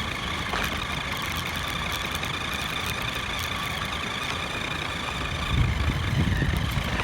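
Toy remote-control car's small electric motor and gears whining steadily, heard from right on the car as it drives. A low rumble of the car jostling over the ground grows louder near the end.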